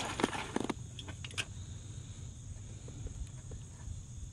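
Heavy-duty aluminium foil crinkling and crackling as a foil pack is unwrapped, busiest in the first second and a half, then only small rustles.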